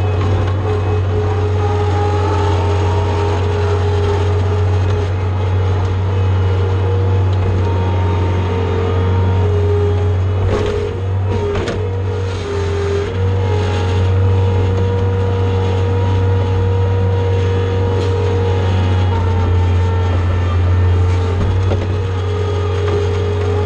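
John Deere skid steer's diesel engine running steadily while working, a low drone with a higher steady tone above it; the note wavers briefly about halfway through.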